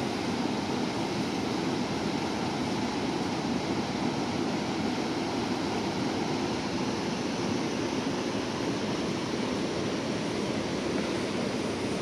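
Small waterfall pouring over rocks into a pool: a steady, even rushing of water.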